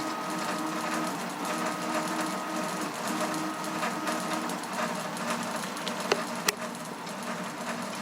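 Stepper motor driving a CoreXY 3D printer's belt-driven Z axis through a two-stage belt reducer, whining at a steady pitch in moves of about a second, each followed by a short pause. Two sharp clicks come a little after six seconds in.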